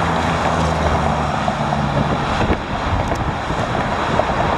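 Road traffic passing close by in the lanes alongside, a steady rushing noise with wind on the microphone. A low engine hum sits under it for the first couple of seconds, then fades.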